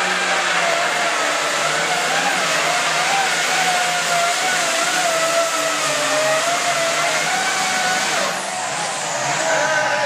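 Hot farm class pulling tractor's diesel engine running hard under load as it drags the pulling sled, its pitch wavering. About eight seconds in it eases off and the pitch falls as the pull ends.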